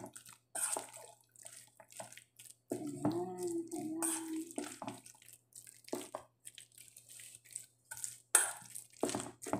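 A hand squishing and tossing thinly sliced beef in a soy-sauce marinade in a stainless steel bowl: irregular wet squelches and slaps.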